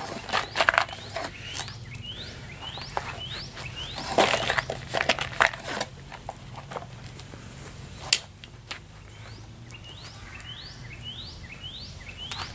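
Scattered metallic clicks and rattles of a .22 revolver and its cartridges being handled, with one sharper click about 8 seconds in. Behind them a bird repeats a short rising chirp about twice a second.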